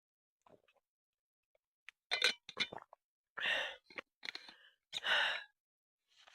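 A person breathing out heavily: two sigh-like exhalations about a second and a half apart, with a few short clicks just before them.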